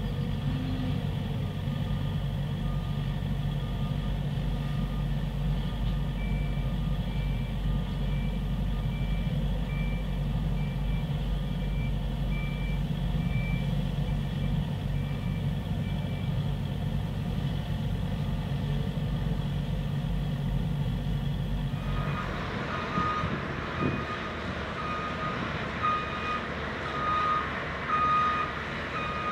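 Heavy site machinery: a diesel engine running steadily while a backup alarm gives repeated high beeps. About three-quarters of the way in the engine drone drops away and a lower-pitched backup alarm beeps over a hiss.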